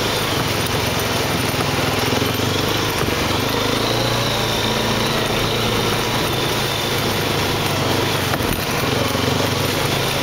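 ATV (four-wheeler) engine running steadily while riding, its pitch shifting a little with the throttle.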